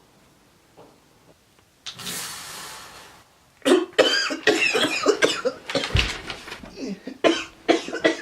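A person coughing and hacking: a rough burst about two seconds in, then a long run of harsh, irregular coughs.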